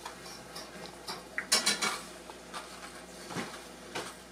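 Hard plastic lure packages being handled and rummaged over a cardboard box: scattered light clicks and rattles, with a quick cluster of sharper clicks about a second and a half in.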